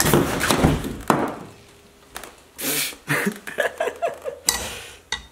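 Small steel pry bar knocking and scraping against a railroad spike's head and the steel tie plate, in an uneven series of clanks and scrapes as it is worked to lever the spike out of a wooden tie. The spike is pounded in too tightly and does not come out.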